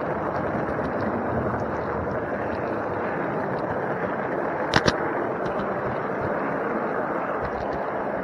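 Model train rolling along the track, heard from a camera riding on a flat wagon in the train: a steady rumble of wheels on rail, with two sharp clicks close together about halfway through.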